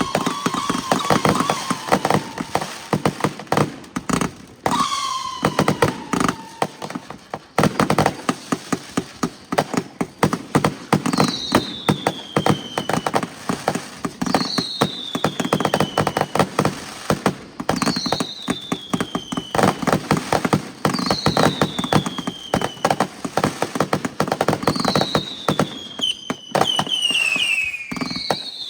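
Fireworks going off: a dense, continuous run of crackling pops and bangs, with a whistle falling in pitch repeated every three seconds or so from about ten seconds in, coming closer together near the end.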